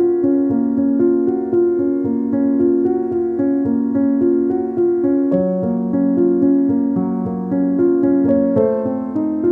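Background piano music with a steady run of notes.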